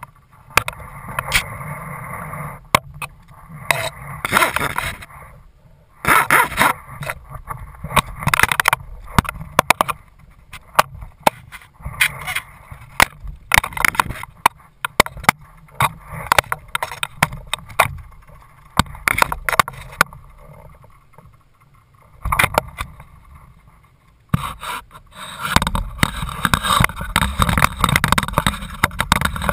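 Wind buffeting the microphone of a camera mounted high on a small sailboat's mast, in gusts, with frequent sharp clicks, knocks and rattles from the mount and rigging. The gusts ease for a couple of seconds about three-quarters through, then come back strongly.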